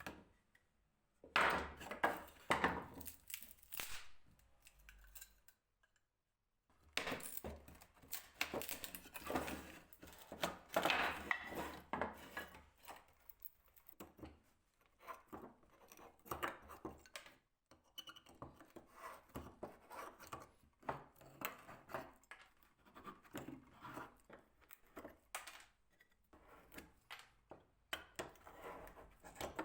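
Hand tools and wooden stool parts being handled and worked: irregular clicks, knocks and short scraping strokes, broken by a short silence about six seconds in.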